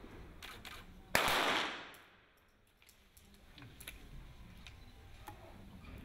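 A .22 sport pistol shot about a second in: a sharp crack that dies away over about half a second. A few fainter clicks or distant shots come before and after it.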